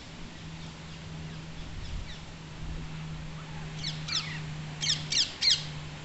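Rose-ringed parakeets calling: a run of five harsh, falling screeches in the second half, the last three loudest and close together, with fainter calls earlier. A steady low hum runs underneath.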